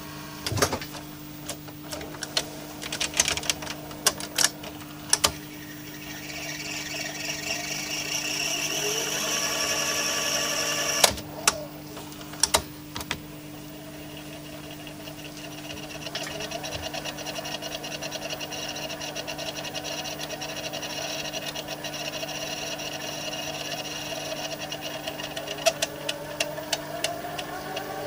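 Panasonic NV-F65 VHS recorder's tape transport at work: a run of mechanical clicks and clunks, then the reels whirring up in pitch while the tape rewinds, stopped by a sharp clunk and more clicks. After a short lull a steady whir of tape winding sets in, its pitch rising again near the end.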